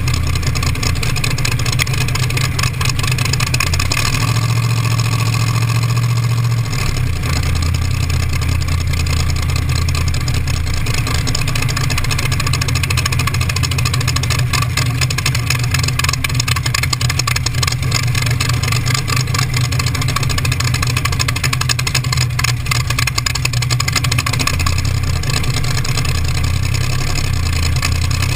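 T-bucket hot rod engine running at low speed with a loud, steady low rumble. The engine speed steps up and down a few times.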